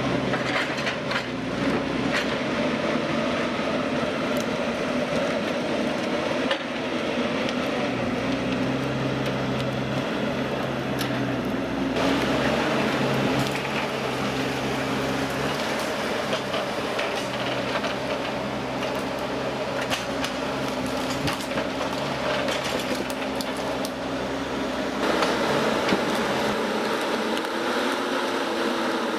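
Machinery running with a steady hum, scattered knocks and clicks; the sound shifts abruptly about twelve seconds in and again near twenty-five seconds.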